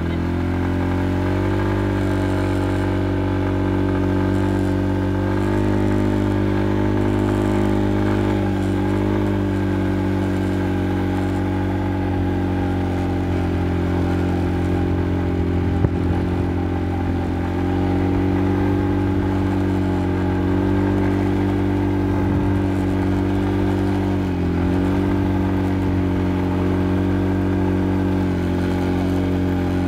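ATV engine running steadily while riding, its pitch rising and falling slightly with the throttle. One brief knock a little past halfway.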